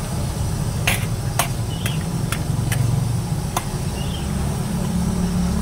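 Metal ladle knocking against a large steel wok as a thick capcay sauce is stirred: several sharp clinks in the first four seconds, over a steady low rumble.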